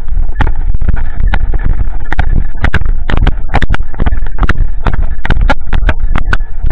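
Loud rumbling handling noise from a camera strapped to a running golden retriever. Irregular sharp knocks and scrapes, a few each second, come as the camera jolts with the dog's stride and brushes through cover.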